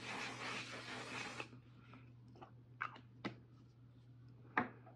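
ONE/SIZE makeup setting spray misted onto the face in one steady hiss that cuts off about a second and a half in. Then three sharp clicks, the last near the end the loudest.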